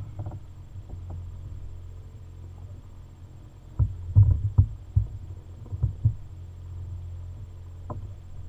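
Steady low hum with a run of dull, low thumps and knocks from about four to six seconds in.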